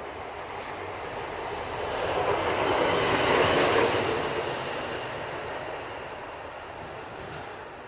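A train passing by: a rushing rumble that swells to its loudest about halfway through, then fades away.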